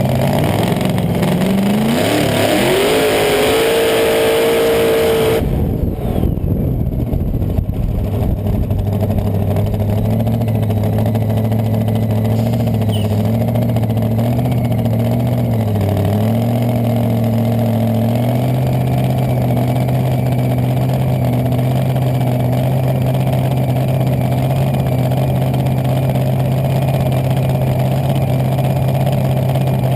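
Top Alcohol dragster engine climbing in pitch under loud noise for a few seconds, then cutting off abruptly about five seconds in. After that an engine runs steadily at a much lower pitch, dipping briefly once and rising a little later on.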